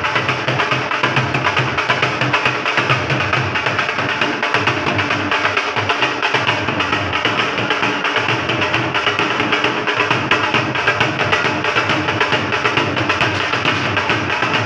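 Dhol drums, double-headed barrel drums, beaten in a fast, steady rhythm without a break.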